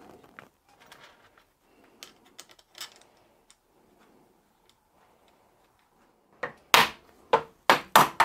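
Soft-faced mallet tapping an aluminium end casing down onto a dynamo body: a few faint clicks as the parts are lined up, then near the end a quick run of sharp taps at about three a second.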